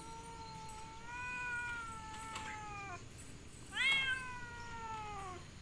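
A stray cat's long, drawn-out meow, held for about three seconds. About a second later comes a second long meow that starts high and slides down in pitch.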